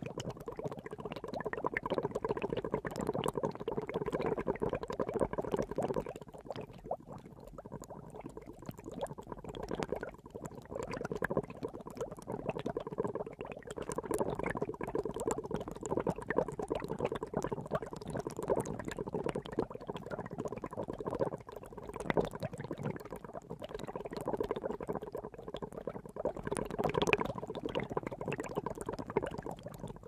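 Water boiling: dense bubbling and popping that eases off for a few seconds and then swells again, twice over.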